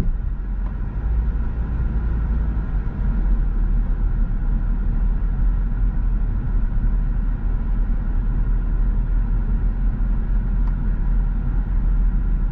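A car driving slowly, giving a steady low rumble of engine and road noise that does not change.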